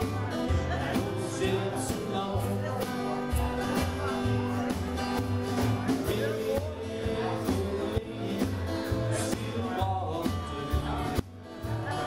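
Live band playing a song: strummed acoustic guitars over bass and drums, with a short break about a second before the end.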